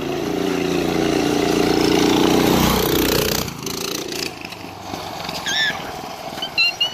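Yerf-Dog go-kart's small engine running hard as the kart drives past, its pitch dropping as it goes by about three seconds in, then fading as it drives away.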